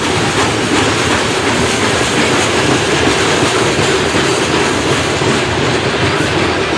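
Norfolk Southern coal hopper cars rolling past: a steady, loud rolling noise of steel wheels on the rails.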